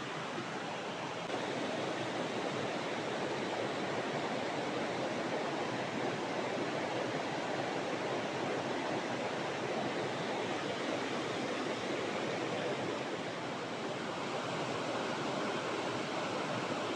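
Steady rush of river water flowing, an even hiss with no distinct events.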